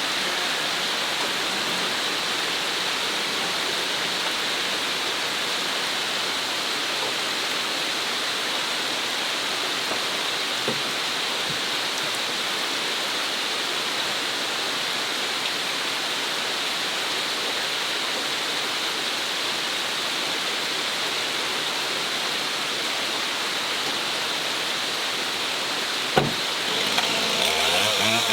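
Steady rain hiss, even and unbroken. Near the end comes a single sharp knock.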